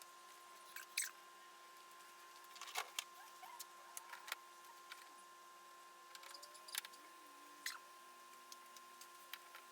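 Faint, scattered light clicks and ticks of small parts and tools being handled during car reassembly, over a faint steady high tone.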